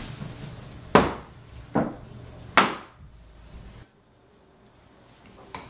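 Three loud knocks a little under a second apart, the last ringing longest, over a low room hum that cuts out abruptly about a second after the last knock.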